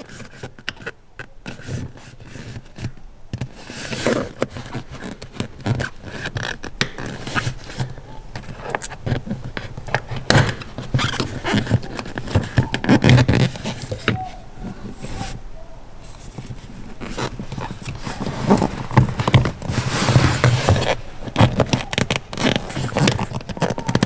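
Screwdriver scraping and clicking against the plastic latches of a BMW E30 throttle pedal as they are pried off its metal floor bracket: irregular scrapes and clicks, busier and louder over the last several seconds.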